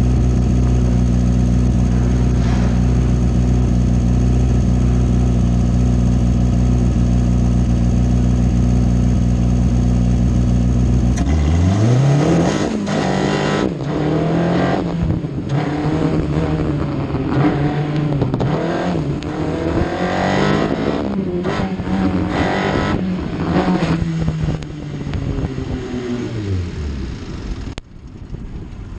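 Single-seater race car's engine idling steadily, then revving hard as the car launches about a third of the way in, its pitch rising and falling again and again as it is driven through the slalom. Near the end the engine note falls away and cuts out as the engine fails.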